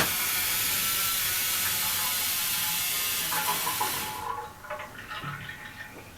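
Hydraulic press release valve opened: a steady hiss of oil flowing back as the ram retracts, stopping about four seconds in, followed by a few faint mechanical clicks and knocks.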